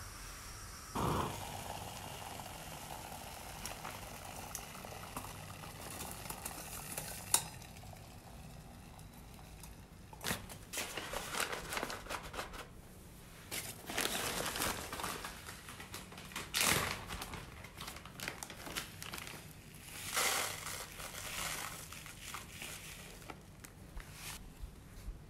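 Irregular crunching and rustling, sparse at first with a click about a second in, then a busy run of crunches from about ten seconds in.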